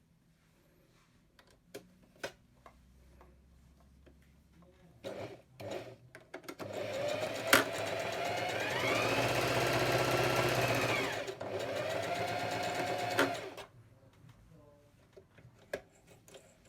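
Singer Cosplay electric sewing machine running for about seven seconds after a few light handling clicks. It speeds up, eases back to a slower pace, then stops abruptly.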